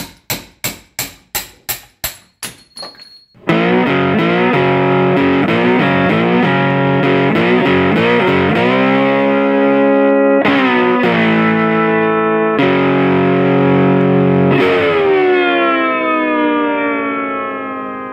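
A run of about nine sharp strikes, quickening and growing fainter, then loud distorted electric-guitar music: a chord riff that ends on a last chord left ringing and fading out.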